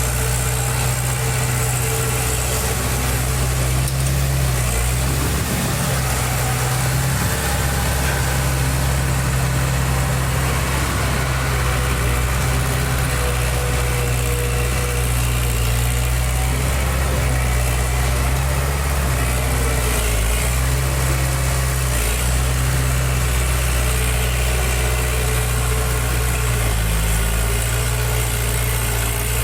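Diesel engine of heavy construction machinery running steadily at an even speed, with a deep low hum and no revving.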